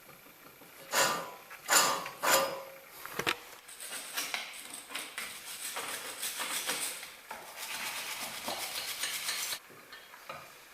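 Metal hand tools at work on steel car parts: three sharp ringing metallic knocks about a second in, then several seconds of fast metallic clicking that stops abruptly near the end.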